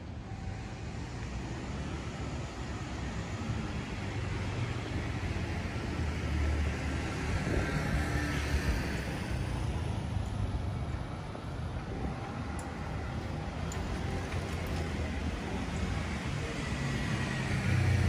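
Road traffic: a steady street hum, with a car passing about midway and another coming close near the end.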